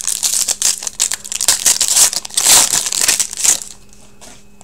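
Foil wrapper of a Crown Royale hockey card pack crinkling and crackling as it is handled by hand. It dies down to a faint rustle about three and a half seconds in.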